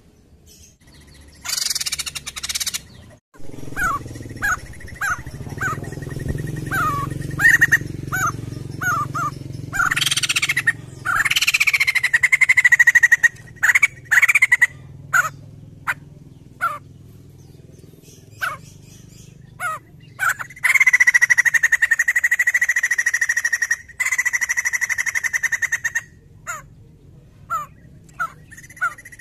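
White-crested laughingthrush (poksay jambul) calling: a run of short, sharp chirps with a few swooping whistles. About three quarters of the way through comes a long, rapid chattering call held for several seconds.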